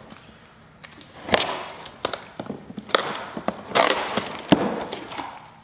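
A utility knife slitting the tape on a cardboard box, then the cardboard flaps scraping and rustling as they are pulled open, with scattered sharp taps and a knock about four and a half seconds in.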